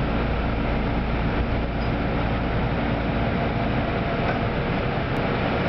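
Running noise inside a Kintetsu 5200-series electric train car as it pulls into a station: a steady rumble of wheels and running gear with a low motor hum, whose low tones fade out about halfway through as the train slows.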